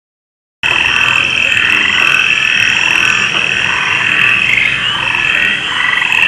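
Frogs croaking in a dense chorus, a steady high trill with rapid pulsing calls layered over it, starting abruptly just over half a second in.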